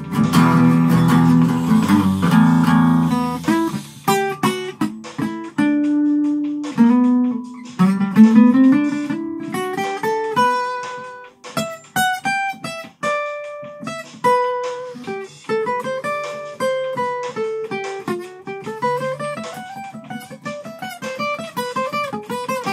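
Acoustic guitar playing an instrumental break: strummed chords for about the first four seconds, then a picked single-note melody line.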